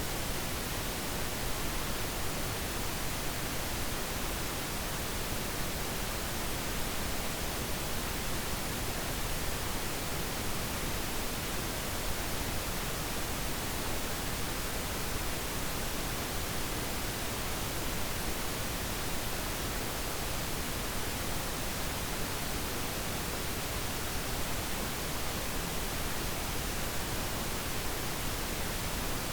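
Steady synthetic noise, an even, unchanging hiss spread across the whole range, of the kind played at low volume as tinnitus sound therapy.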